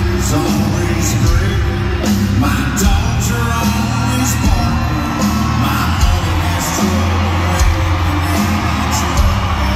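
Amplified live band playing loud country rock in an arena: pounding drums and bass under electric guitars and keyboards, with whoops from the crowd.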